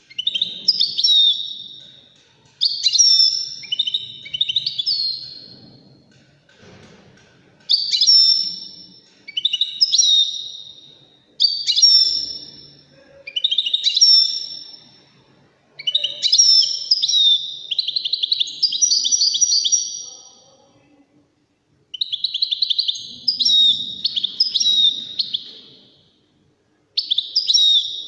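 Goldfinch song: bright, twittering and trilled phrases of a second or two, repeated over and over with short pauses between them.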